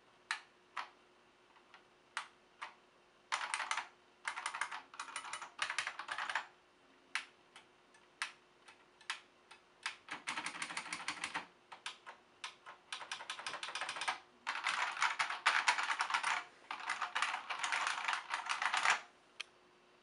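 Typing on a Unicomp UltraClassic buckling-spring keyboard. A few separate keystrokes come first, then runs of fast typing, densest over the last several seconds, stopping shortly before the end.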